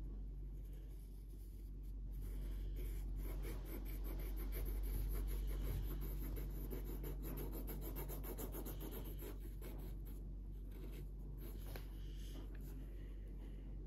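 Felt-tip marker scratching on paper in rapid back-and-forth colouring strokes, with a couple of short pauses, over a steady low hum.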